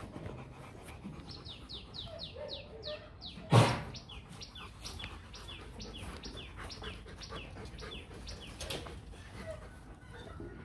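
A small bird calling in a long run of short, high, falling chirps, about three or four a second. One louder short sound about three and a half seconds in.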